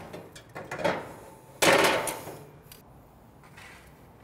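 Metal clanks and knocks as a gas grill's cooking grate is set back down over the smoker box. There are a few knocks in the first second, then one loud clank about a second and a half in that rings briefly, and a couple of faint taps after it.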